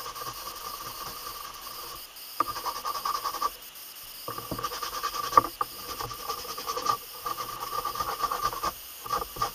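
Blue shop towel, a heavy-duty paper towel, rubbing briskly over a black-dyed vegetable-tanned leather knife sheath, in bouts of quick strokes with short pauses about two and four seconds in. This is buffing off the dye residue left on the leather after dyeing.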